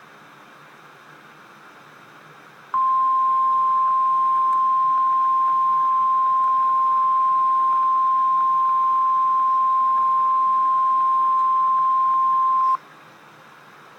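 Emergency Alert System attention signal: the single steady 1050 Hz NOAA Weather Radio warning alarm tone, held for about ten seconds and ending abruptly. It announces that a new warning broadcast is about to begin.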